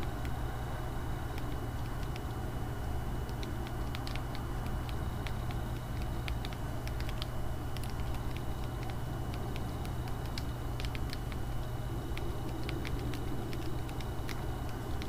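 Irregular clicking of keys being typed on the Nokia Surge 6790's slide-out QWERTY keyboard, over a steady low hum.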